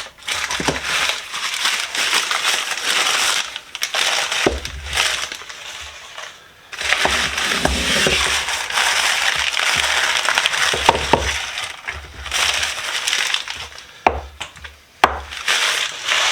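Packing material crumpled and rustled in long stretches as it is pulled out of a box, with a few sharp knocks.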